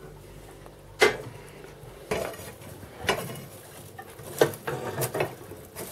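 A metal poker clanking in the firebox of a metal-clad wood stove as the coals are stirred: about six sharp metal knocks roughly a second apart, some with a short ring.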